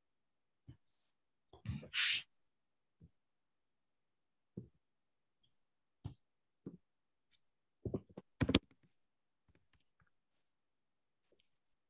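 Scattered faint clicks and knocks over a video-call microphone, with a short hiss about two seconds in and a cluster of sharper knocks around eight and a half seconds.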